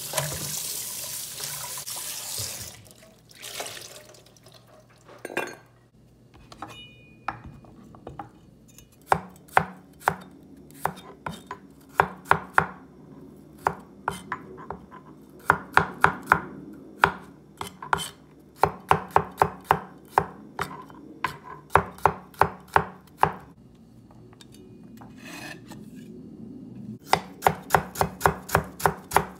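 Tap water running into a steel sink for the first few seconds, then a cleaver chopping garlic and ginger on a plastic cutting board: sharp knocks in quick runs of several a second, with short pauses between runs.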